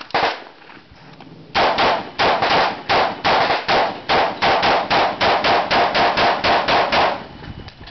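POF-USA P308 MMR short-barrelled .308 rifle with a 10-inch barrel, fired unsuppressed: a single shot right at the start, then after a short pause a rapid string of about twenty semi-automatic shots at roughly four a second that stops about a second before the end.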